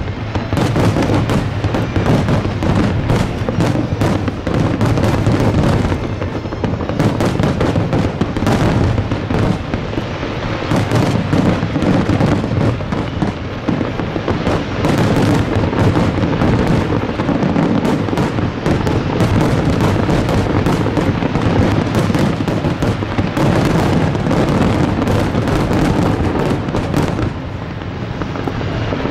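Fireworks display going off in a dense, unbroken barrage of many overlapping bangs and crackles.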